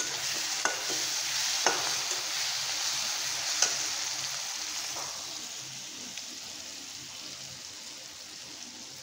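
Vegetables sizzling in hot mustard oil in a metal kadhai as they are stirred with a metal slotted spatula, which knocks against the pan a few times in the first few seconds. The sizzle slowly fades.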